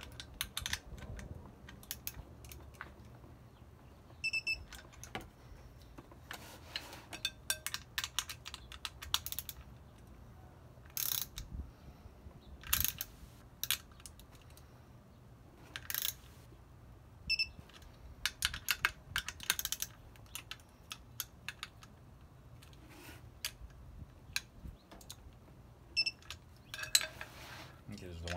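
Ratcheting and clicking of a digital torque wrench as the bolts of a two-piece brake rotor ring are tightened in turn. Three short high beeps from the wrench come about four seconds in, in the middle and near the end, each signalling that the set torque has been reached.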